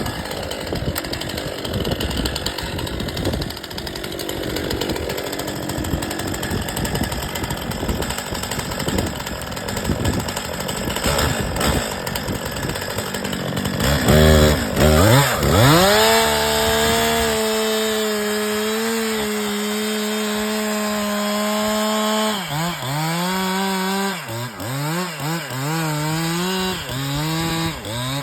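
Two-stroke chainsaw running under heavy wind buffeting on the microphone. About halfway through the saw revs up and holds steady at full throttle, then in the last several seconds its revs rise and fall repeatedly.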